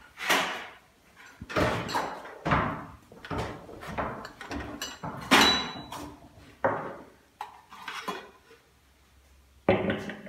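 Irregular knocks and clatter of crockery and a metal teapot on a tray being carried and set down on a wooden table.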